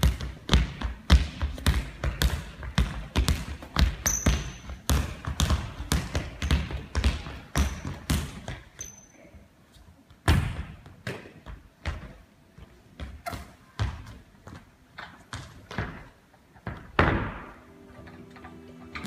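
A ball bounced repeatedly on a wooden sports-hall floor, about three bounces a second, with a few short squeaks. About ten seconds in the dribbling stops, and only scattered thuds follow, one louder near the end.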